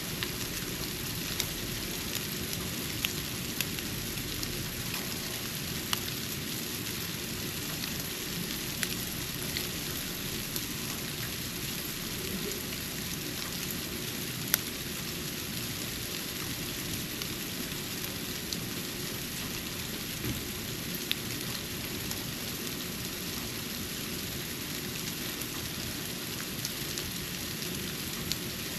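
Snow falling on a porch: a steady soft hiss with scattered sharp ticks of flakes landing, the sharpest about halfway through.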